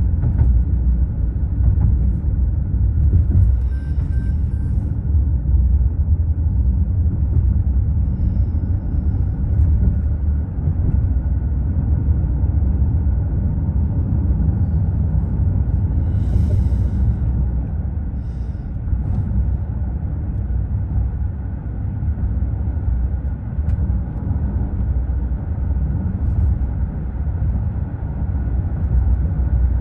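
Steady low rumble of tyre and engine noise heard inside the cabin of a moving car, with a faint steady whine above it and a brief hiss about sixteen seconds in.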